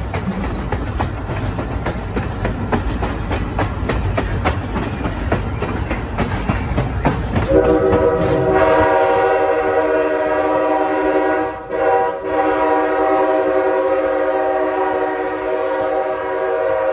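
Train rolling past with a low rumble and rapid wheel clicks. About halfway through, a Nathan K5L five-chime air horn on the locomotive sounds one long chord with two short breaks, then cuts off suddenly at the end.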